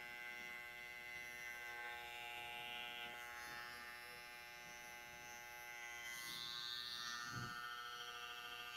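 A steady electrical hum made of several even tones, with a short low thump about seven seconds in.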